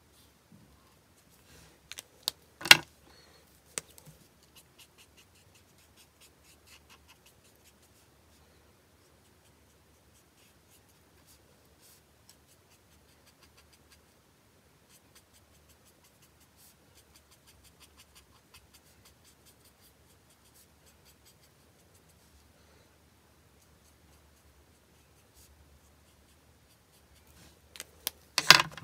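Ohuhu alcohol marker nib stroking and scratching faintly across white card stock, laying in grey shading. A few sharp clicks come about two to three seconds in, and a louder cluster of clicks and knocks comes near the end.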